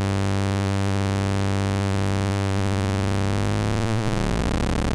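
Synthrotek MST analog VCO playing a low, steady sawtooth drone, frequency-modulated by a sine from a second oscillator. Near the end, as the modulation depth is turned up, the tone breaks into a wobbling, clangorous smear of overtones.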